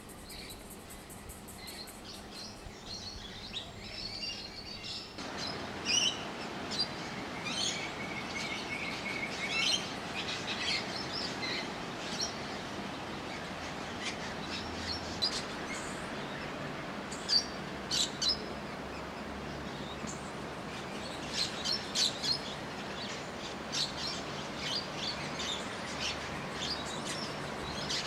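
Wild birds singing and calling: many short chirps and whistled notes, some in quick runs. A steady background hiss comes in about five seconds in.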